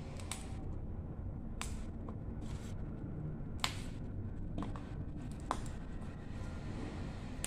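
Fresh green beans snapped by hand into pieces: a run of crisp snaps, about one a second, over a low steady hum.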